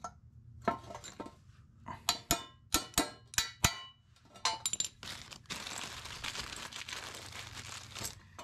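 Small steel brackets and a socket ratchet clinking against a steel striping-kit bar, a run of sharp clinks over the first four seconds. A steady rasping noise follows for about two and a half seconds near the end.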